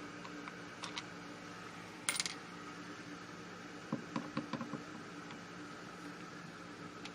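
Small metal clinks and taps from a screwdriver and screws working on a light switch cover plate. There is one bright jingling clink about two seconds in and a quick run of clicks a little past the middle, over a steady faint hum.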